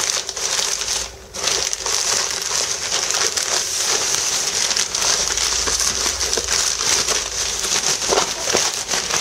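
Plastic postal mailer bag and bubble wrap crinkling and rustling continuously as hands pull a wrapped parcel out of the bag, with a brief lull about a second in.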